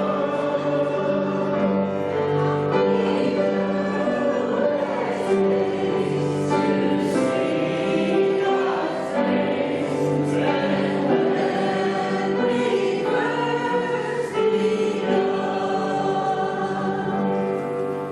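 Church group singing a gospel song together, voices sustaining notes in chords over musical accompaniment.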